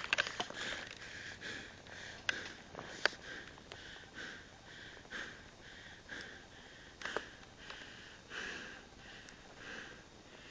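A person's quick, short breaths or sniffs through the nose close to the microphone, repeating about every half second to second. There are a few sharp clicks in between.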